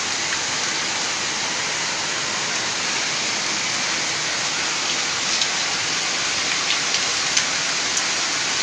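Heavy rain pouring down steadily, an even hiss, with a few faint ticks in the second half.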